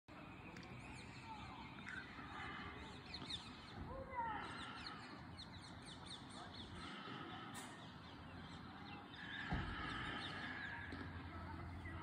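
Rose-ringed parakeets calling: harsh screeches among quick, high chirps. A low steady hum comes in near the end.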